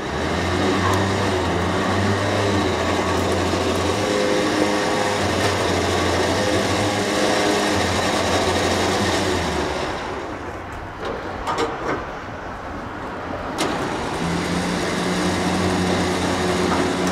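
Truck's winch running, paying its cable out, a steady mechanical hum that starts suddenly. It drops off about ten seconds in with a few sharp clicks, then runs again about fourteen seconds in.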